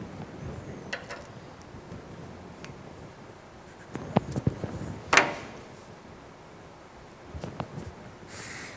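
Quiet handling of pencil and ruler on paper while drawing reference lines: a few light taps and knocks as the tools are set down and moved, the loudest about five seconds in, and a short scratchy pencil stroke near the end.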